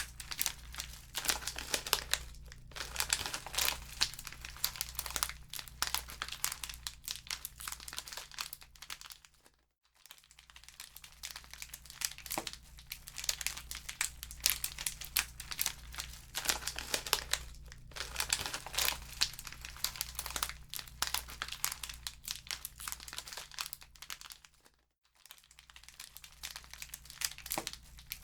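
Wood fire in a fireplace crackling, with dense snapping and popping over a low steady rumble. The crackle fades out briefly twice, about ten seconds in and again about twenty-five seconds in.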